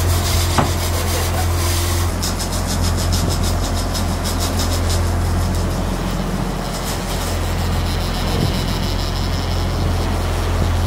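Sportfishing boat's engines running with a steady low drone under the rush of wake and wind. A fast, even high ticking runs for a few seconds from about two seconds in.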